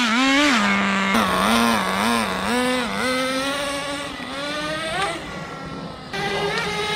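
HSP 94102 nitro touring car's small two-stroke glow engine running, revving up and down in quick throttle blips about twice a second. It then holds a steadier note that rises and fades as the car moves away, and comes back louder about six seconds in. The engine is still being run in.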